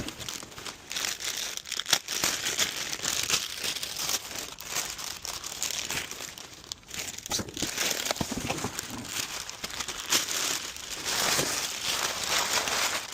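Packaging crinkling and tearing as new car side skirts are unwrapped, a continuous rustle with uneven swells in loudness.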